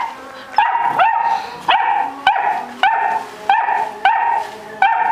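A puppy barking in a steady run of high-pitched yaps, about eight in quick succession.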